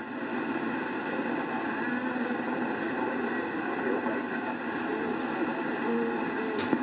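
Yaesu transceiver tuned to CB channel 4 (27.005 MHz), its speaker putting out steady receiver static with faint, garbled voices of distant stations under it. Several short crackles break through, a sharper one near the end.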